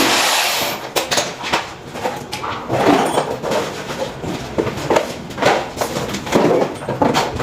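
Background guitar music cuts off within the first second. Then come irregular knocks, scrapes and rustles of hands working.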